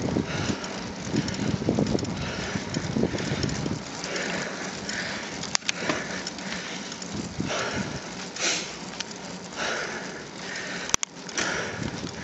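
Wind and road noise from a bicycle rolling along asphalt, heard from a bike-mounted camera, with a couple of sharp clicks, the sharpest about eleven seconds in.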